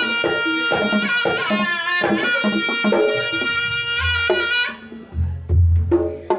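Reog Ponorogo gamelan music: a slompret (wooden shawm) plays a wavering, reedy melody over kendang drumming and struck gamelan percussion. About four and a half seconds in the shawm stops, and a few deep drum strokes continue with short gaps between them.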